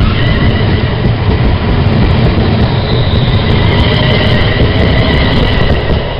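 Class 350 electric multiple unit running past at close range as it departs: a loud, steady rumble of the train on the track, with a faint high whine over it. The noise eases off near the end.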